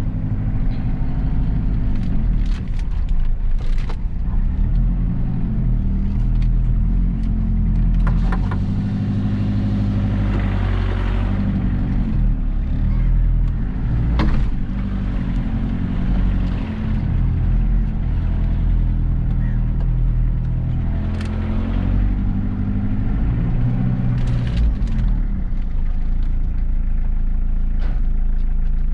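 Mitsubishi Pajero's 4D56 four-cylinder turbo-diesel engine pulling under load off-road, its revs rising and falling. There are occasional knocks and rattles.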